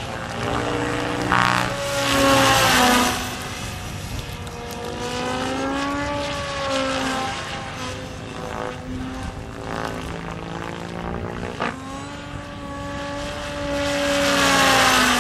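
HD-750 electric RC helicopter, on a 12-cell LiPo pack, flying 3D aerobatics. The rotor and motor give a whine whose pitch keeps rising and falling as the blades load and unload through the manoeuvres, growing louder about two to three seconds in and again near the end.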